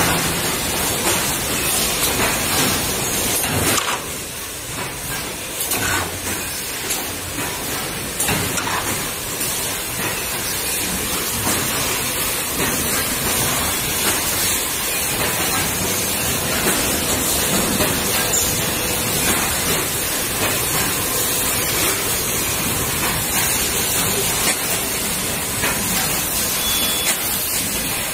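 Automatic PET lid thermoforming machine running: a steady, mostly high-pitched rushing noise with a few faint knocks. The level dips briefly about four seconds in.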